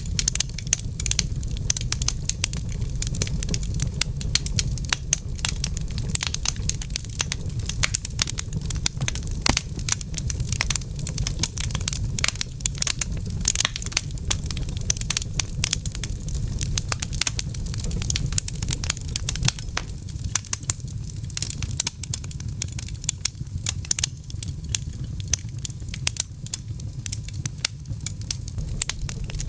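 Wood fire crackling in a fireplace: dense, irregular crackles over a low, steady rumble.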